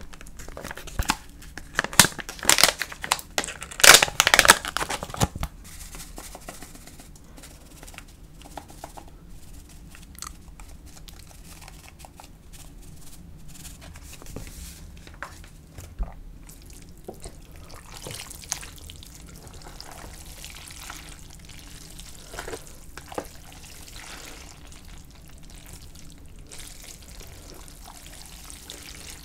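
Plastic seasoning pouch crinkling loudly for a few seconds as it is handled and shaken, followed by quieter scattered light rustles and clicks as the powder goes on and the noodles are turned over with chopsticks and a spoon.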